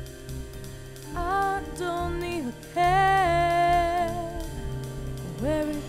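A woman singing a slow tune in long held notes, one phrase sliding down at its end and the last note sliding up, over backing music.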